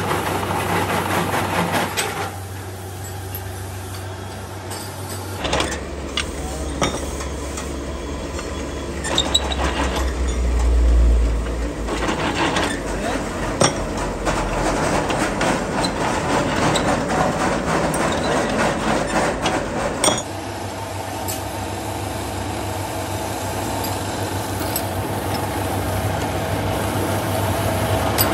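Metalworking workshop noise: a steady machine hum with scattered metal clinks and knocks. The background changes abruptly twice.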